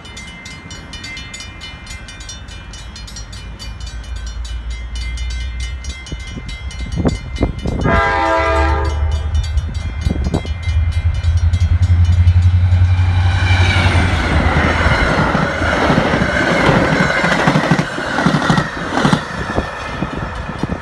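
Metra commuter train led by an MP36 diesel locomotive approaching and passing at speed. The engine grows louder, and the horn sounds one short blast about eight seconds in. The locomotive's low engine drone is loudest as it goes by, then the wheels clatter over the rail joints as the coaches pass.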